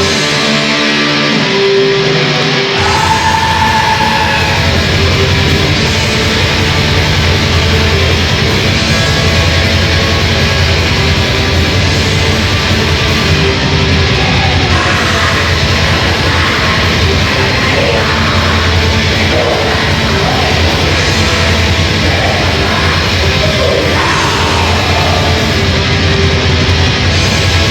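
Heavy metal band playing live. The opening guitar line is joined about three seconds in by the full band, which fills out the low end and stays dense and loud.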